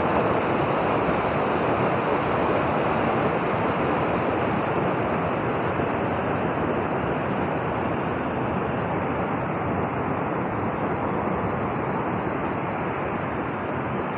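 Fast river rushing over rocks: a steady, loud noise of white water that grows a little fainter near the end.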